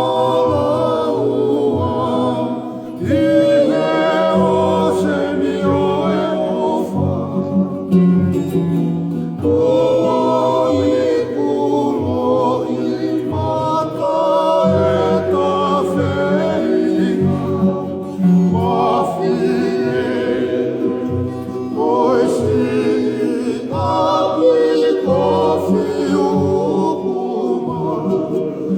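A group of voices singing a faikava song together in harmony, in the style of a Tongan kava-circle song.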